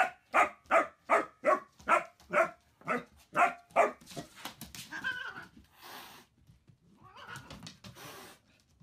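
Puppy barking in quick, high, sharp barks, about ten in the first four seconds, then softer, breathier noises.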